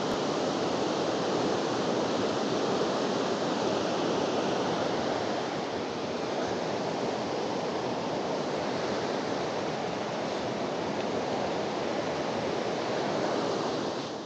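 Swollen creek running high with floodwater after heavy rain, a steady rushing of water.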